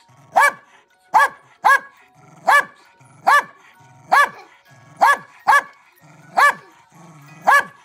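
A corgi barking: about ten short, sharp barks, roughly one a second.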